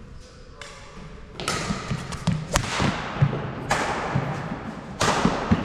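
Badminton rally: rackets striking a shuttlecock several times, sharp cracks about a second apart, the strongest about two and a half seconds in, echoing in a large hall, with thudding footfalls on the court between them.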